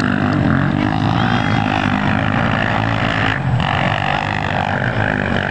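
Dirt bike engines running, a steady drone.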